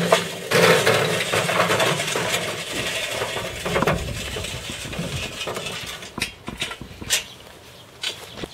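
Hot charcoal briquettes poured from a chimney starter, rattling and clattering onto the stainless-steel coal tray of a portable grill for about three and a half seconds, followed by a few lone clinks as the last pieces settle.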